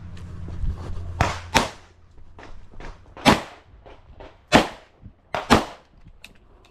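A firearm fired in a timed range drill: about six sharp shots at uneven intervals, with a quick pair about a second and a half in and another pair near the end.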